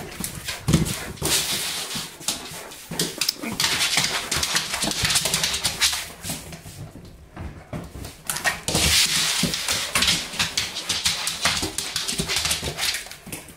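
A Weimaraner dashing about on a tiled floor, its claws clicking and skidding rapidly on the tiles in two long flurries with a short lull between.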